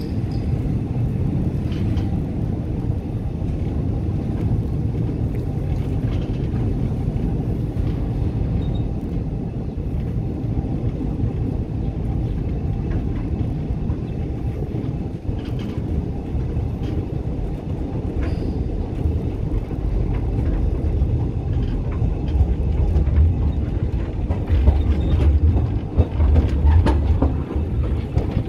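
Borkum Kleinbahn narrow-gauge passenger train running, heard from the open platform of a carriage: a steady low rumble of wheels on rails with faint scattered clicks, growing louder in the last third.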